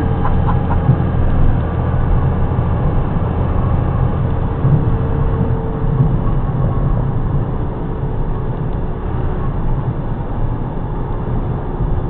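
Engine and road noise inside a box truck's cab while driving, a steady hum whose engine note drops back about six seconds in.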